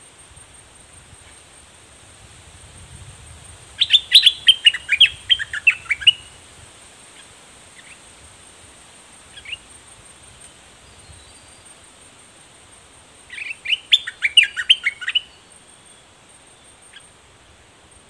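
Bulbul song: two bursts of quick, rapid chirping notes, each about two seconds long, the first about four seconds in and the second past the middle, with a few single call notes in between.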